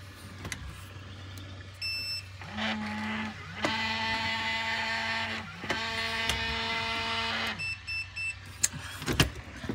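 A small electric motor whining in three runs of about one to two seconds each, winding up and down at each start and stop. Short electronic beeps come about two seconds in, and three quick beeps near the end.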